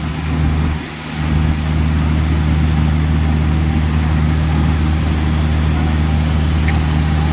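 A heavy vehicle's engine running steadily with a low, even hum, dipping briefly about a second in and then holding steady.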